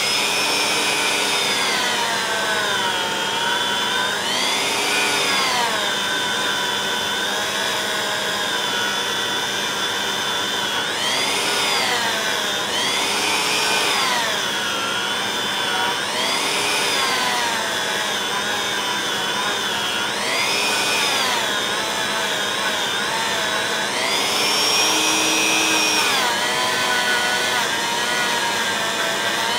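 Handheld rotary tool spinning a small brass wire brush against an aluminum piston, scrubbing carbon out of the ring grooves. Its high motor whine falls in pitch and comes back up again and again as the brush is pressed to the work, over a steady scrubbing hiss.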